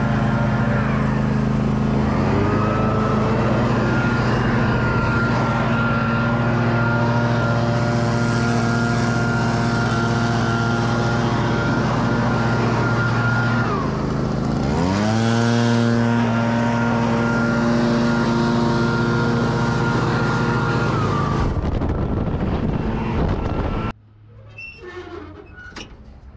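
Small gasoline engine of lawn-care equipment running steadily at high speed. About fourteen seconds in, its pitch dips and climbs back up, and the sound cuts off abruptly a couple of seconds before the end.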